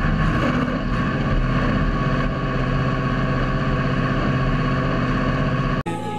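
Tractor diesel engine running steadily under load, heard close up from the front of the hood while it drives a hay tedder. It cuts off suddenly shortly before the end.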